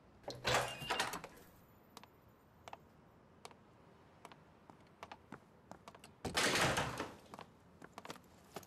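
Footsteps, sharp quick clicks of heeled shoes on a hard floor, with two louder, noisier sounds about a second long, one near the start and one about six and a half seconds in.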